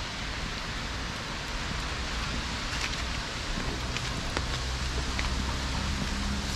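Light rain hissing steadily, with scattered drips ticking on the wet paving. A low rumble swells in the second half.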